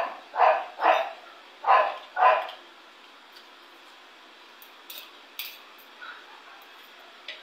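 A dog barking five times in quick succession, then falling quiet. A few light clinks of a spoon and fork on a plate follow.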